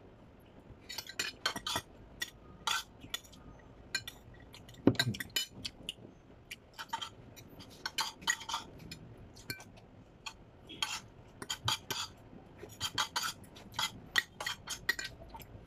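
Spoon and fork clinking and scraping against a plate while eating, in short irregular taps, with one louder knock about five seconds in.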